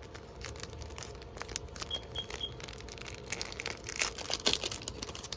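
Rustling and crinkling of paper and packaging being handled, with small clicks throughout and the busiest handling about four seconds in.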